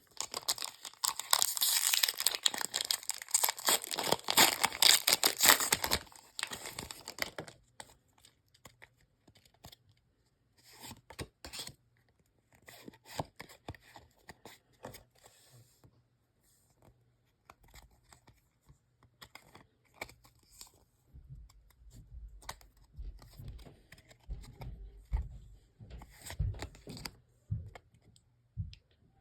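A foil booster pack wrapper being torn open and crinkled for about the first seven seconds, then quieter scattered clicks and rustles of trading cards being handled.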